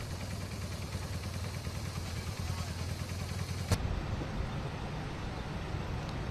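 Steady low rumble of road traffic, broken by a click about four seconds in where the footage cuts.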